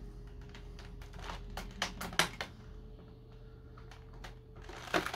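Clear plastic blister tray being handled, giving scattered light clicks and crackles, fewer around the middle.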